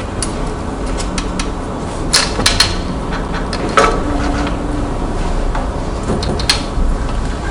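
Scattered clicks and light clattering knocks of metal and plastic as an LCD panel's thin metal frame is pried off by hand, the sharpest clicks a couple of seconds in and near the middle, over a steady low hum.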